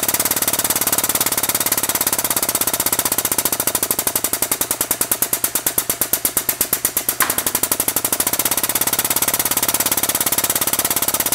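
Hydraulic pump driving a Vevor CH-70 hole punch, running with a rapid, even pulsing as the punch is pressed through quarter-inch steel plate. It cuts off abruptly at the end.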